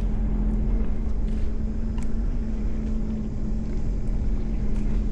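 2024 Sea-Doo Explorer Pro 230 personal watercraft engine running steadily at low speed, a constant drone with a deep rumble underneath.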